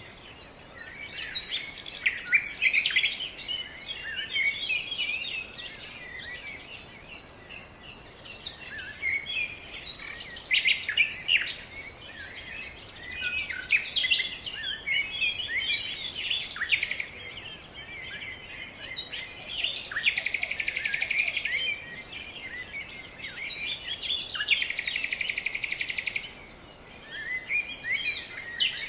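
Several birds chirping and singing in quick, overlapping phrases, with two buzzy trills of about a second and a half each, about two-thirds of the way in and again shortly after.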